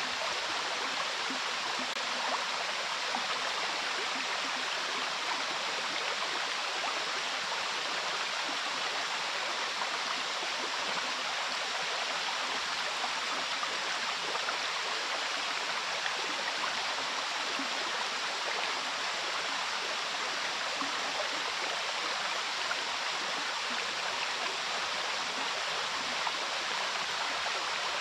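River water rushing over rocks together with a waterfall, heard from inside the stream: a steady, even rush with no breaks.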